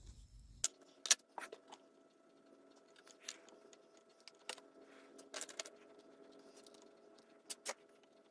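Scattered light clicks and taps of small metal and plastic parts being handled as a new rubber seal and cover are fitted onto a carburetor top and its small screws are set in place, the sharpest click about a second in and two close together near the end. A faint steady hum sits underneath.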